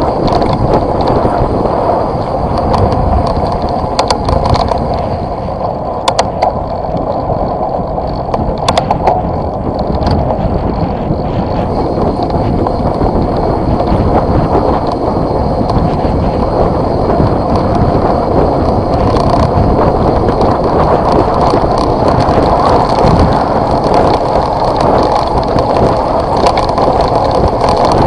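Steady rumble and rattle of tyres rolling down a gravel dirt track, picked up by a camera mounted on the vehicle, with a few sharp knocks from bumps in the first ten seconds.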